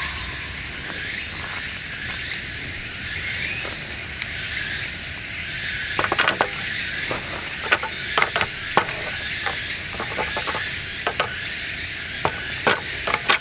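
Hot liquid poured from a cooking pot into a steel Sierra cup, over a steady hiss. From about halfway, irregular sharp clicks and clinks set in.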